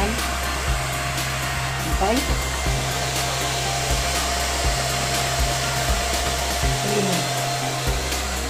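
Handheld hair dryer blowing steadily on hair, a constant rush of air with a thin whine, switched off right at the end.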